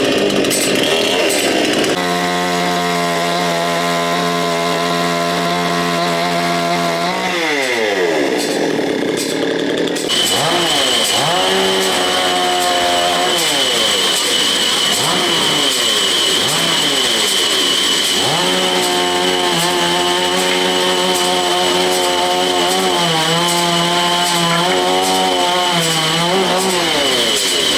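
Sawmill saw machinery running with a steady pitched hum that sags in pitch and recovers several times as the saw loads up in the cut. A steady high whine joins about a third of the way in.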